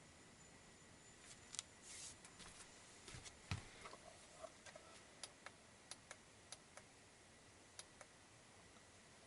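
Near silence in a small room, broken by faint, irregular sharp ticks and clicks, about a dozen of them, starting about a second in.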